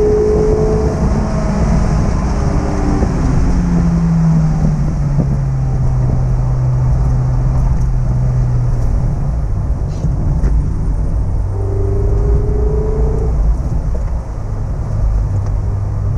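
Mazda MX-5 ND's 1.5-litre naturally aspirated four-cylinder through its stock exhaust, heard onboard: high revs for the first second, then the pitch drops and stays low as the car slows, with a short rise in revs near the end. Steady road and wind rumble runs underneath.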